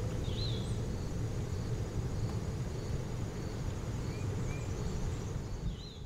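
Outdoor nature ambience: a steady low rumble with a faint high insect chirring, small repeated chirps, and a bird's short rising-and-falling chirps just after the start and again near the end.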